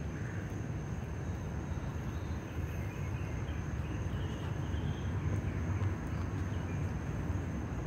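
A steady low rumbling noise of a fire burning fiercely on a small model fuel tank car, swelling slightly a little past the middle, with no bang.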